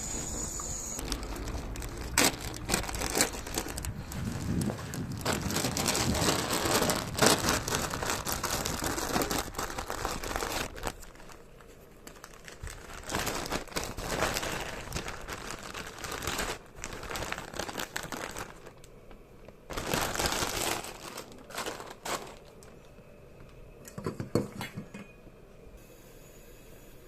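Crinkling and rustling of handled packaging, continuous for about the first ten seconds, then in short separate bouts.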